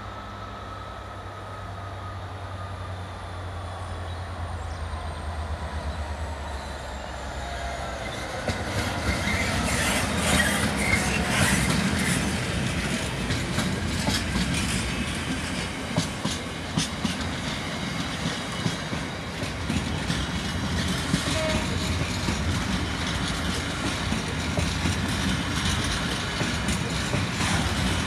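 A Class 66 diesel locomotive approaches, its engine hum growing louder, and passes about eight seconds in. It is followed by a long train of empty coal hopper wagons rolling past with a steady rumble and irregular clattering of wheels over the rail joints.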